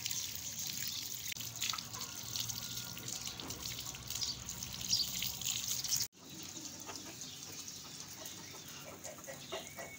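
Water from a hose gushing over a rooster's feathers and splashing onto wet concrete: a steady splashing hiss that cuts off abruptly about six seconds in, leaving only faint background sounds.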